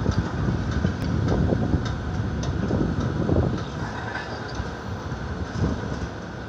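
Street traffic below: a steady rumble of cars and scooters passing through the intersection, easing slightly near the end.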